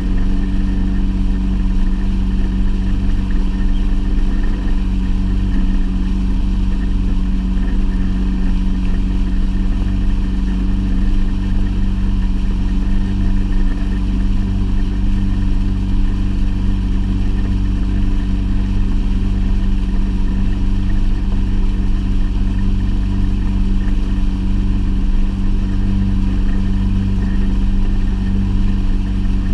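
Fishing boat's motor running steadily under way, a constant loud hum with no change in speed.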